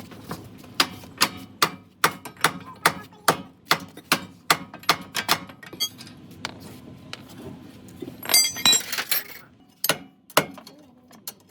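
Hammer striking metal in a run of sharp knocks, about two or three a second, with a burst of ringing metallic clinks about eight seconds in.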